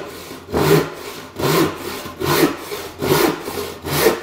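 Freshly sharpened hand saw cutting into a wooden board in steady, even strokes, a little over one a second, as the cut is started for a test of whether the saw drifts.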